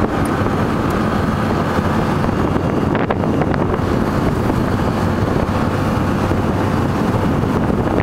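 Motorboat engine running steadily while the boat is underway, with wind buffeting the microphone.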